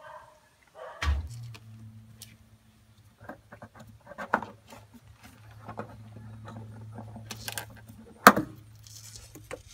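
Clicks and rattles of a gloved hand working a MAP sensor and its plastic electrical connector loose on a truck's firewall, with one sharp click near the end. A steady low hum runs under it from about a second in.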